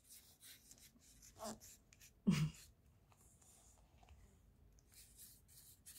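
Faint scratching and tapping of a paintbrush and fingers on paper, watercolour painting, with a brief low vocal murmur about two seconds in.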